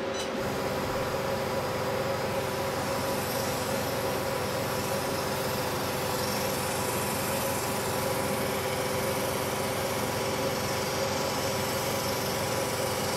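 Portable cryolipolysis slimming machine running with a steady mechanical hum of several constant tones. A click comes right at the start, and a higher hiss joins the hum just after it.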